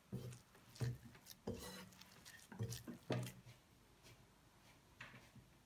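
Hands kneading a soft yeasted dough in a ceramic bowl. The dough is pressed and pushed against the bowl in soft, irregular thuds with light rustling, about five in the first three and a half seconds, then fainter.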